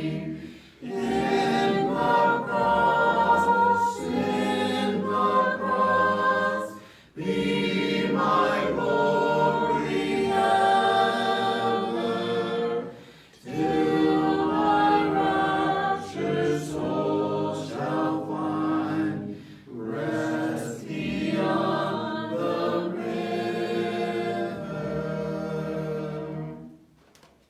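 A small congregation singing a hymn a cappella, without instruments, in phrases with short breath pauses between them. The singing dies away near the end as the hymn finishes.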